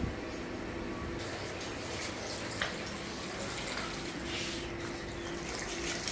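Aquarium water running out of a siphon hose onto a concrete floor, a steady splashing flow that gets louder about a second in, with a faint steady hum underneath.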